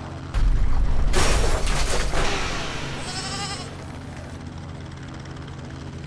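Cartoon sound effects. A helicopter's steady drone runs throughout. About half a second in, a loud, deep crash with crunching noise as the helicopter comes down onto a parked car. About three seconds in comes a brief wavering high cry.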